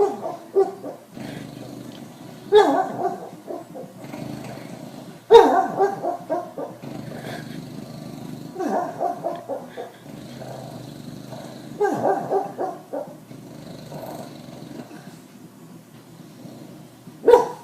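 Sleeping dog dreaming: muffled barks and growls in its sleep. There are six sudden outbursts, two to five seconds apart, each trailing off.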